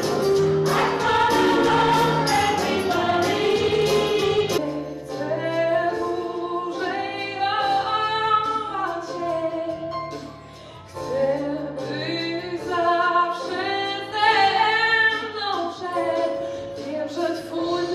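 A small choir of women's voices singing together. About four and a half seconds in it gives way to a woman singing solo into a microphone.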